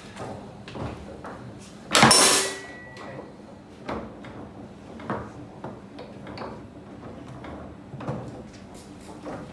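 Foosball table in play: a string of sharp knocks from the ball and rods striking, about one a second, with one much louder bang about two seconds in.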